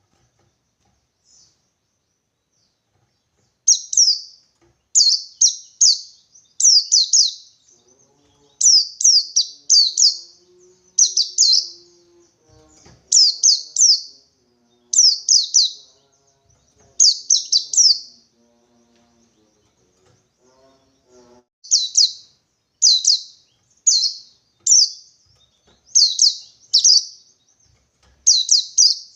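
White-eye (pleci) giving the 'ngalas 123' call: clusters of two or three quick, high, downward-sweeping notes, repeated about once a second. The series begins a few seconds in and pauses briefly past the middle. This is the call of a wild white-eye seeking a rival.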